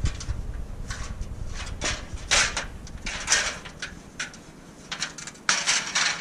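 Irregular scraping and flexing noises, several in a row, as a bent underbody plate is stepped on to straighten it.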